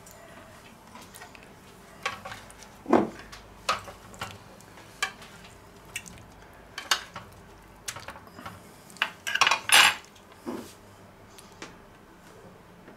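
Fork and spatula clinking and scraping against a stainless steel roasting pan as the ribs in it are turned over: a run of scattered metallic clicks and knocks, loudest in a cluster about nine to ten seconds in.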